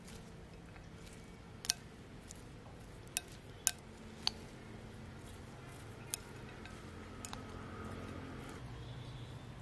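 Chopsticks tossing shredded vegetables and noodles in a glass bowl, with about six sharp clinks of the chopsticks against the glass, the loudest a little under four seconds in.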